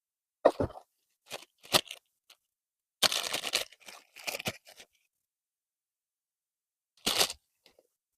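Packaging handled during an unboxing: short bursts of crinkling and rustling, five or so separate bouts with pauses between them.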